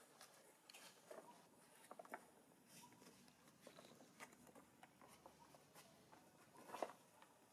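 Near silence, with faint scattered clicks and light patter and one sharper click near the end.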